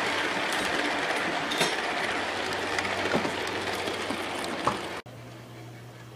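HO scale model passenger cars rolling past on the track, a steady rushing rattle of wheels on rail with scattered sharp clicks. About five seconds in it cuts off abruptly to a quieter steady hum.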